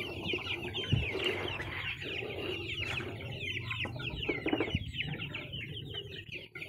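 A flock of poultry calling: many short, high cheeping and clucking calls overlapping continuously.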